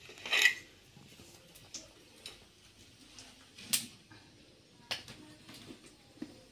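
Wood fire under an iron kadai crackling, with half a dozen sharp pops spread across a quiet background. The loudest comes about half a second in and another just before four seconds.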